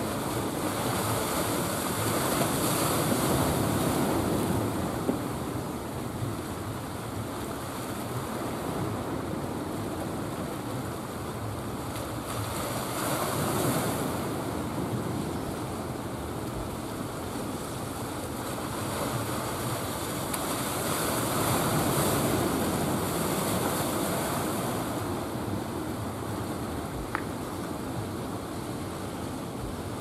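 Ocean surf: waves breaking and washing in a steady hiss that swells and eases slowly, loudest three times about nine or ten seconds apart.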